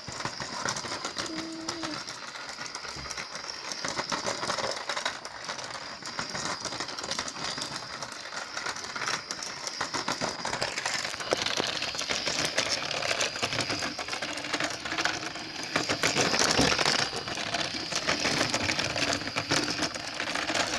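Battery-powered toy model train running along its plastic track: a small motor whining at a steady high pitch over a dense, fast clicking rattle of wheels and gears.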